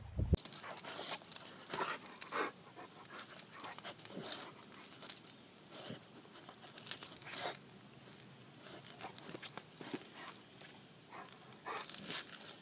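A dog sniffing and snuffling at a mouse on the ground in short, irregular bursts, over a steady high hiss.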